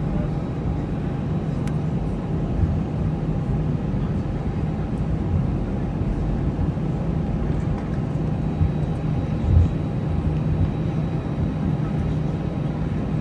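Airliner cabin noise while taxiing: the jet engines running at low power as a steady low drone, with one brief thump about nine and a half seconds in.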